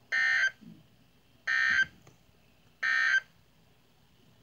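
Emergency Alert System end-of-message signal on NOAA Weather Radio: three short bursts of digital SAME data tones, each about a third of a second long and about 1.3 s apart, marking the end of the alert.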